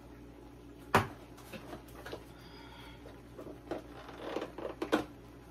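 Light handling sounds of seasoning at the stove: a sharp click about a second in, then faint patter, rustles and small taps as a pepper shaker is shaken and a salt canister is picked up and set on the counter, with a few sharper taps near the end.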